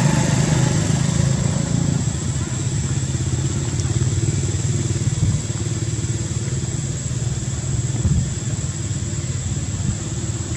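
A small engine running steadily at an even low pitch, with a thin, high, steady whine over it.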